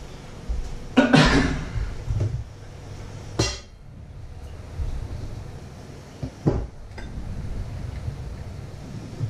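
Kitchen clatter of cookware being handled: a clatter about a second in, then single sharp knocks and clinks about three and a half and six and a half seconds in, over a steady low hum.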